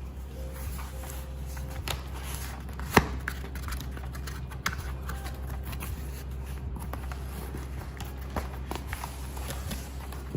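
Hands handling and opening product packaging: scattered light taps, rustles and clicks, with one sharp click about three seconds in.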